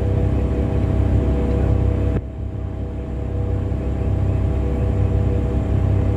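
Large diesel engine of heavy mining equipment running with a steady low rumble; about two seconds in the sound drops suddenly, then builds back up.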